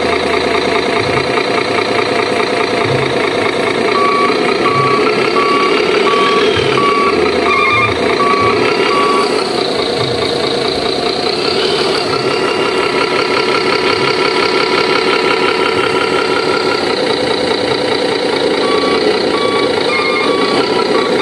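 Simulated truck diesel engine running, played by a remote-control Canter truck's electronic sound unit through a small speaker. A reversing beeper sounds in evenly spaced beeps from about four seconds in for several seconds, and again near the end.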